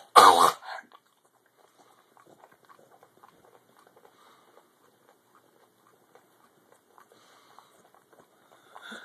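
A dog lets out one loud, sharp, noisy blast of breath right at the start, then makes faint, scattered lip-smacking and licking clicks as she works a dose of cough syrup around her mouth.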